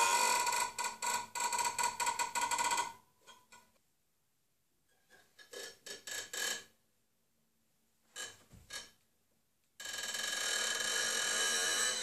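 Violin bow drawn slowly across the high strings of a concert harp, giving creaky, door-like squeaks. A long, stuttering squeak opens, then short squeaks with gaps of quiet, then a steady, held squeak from near the end.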